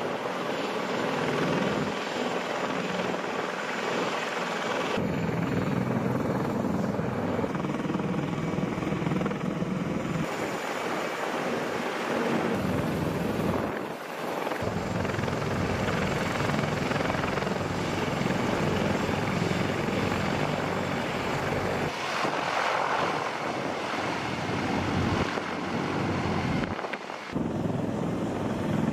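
CH-53E Super Stallion heavy helicopters' turbine engines and rotors running steadily, first on the ramp and then flying past. The sound changes abruptly several times.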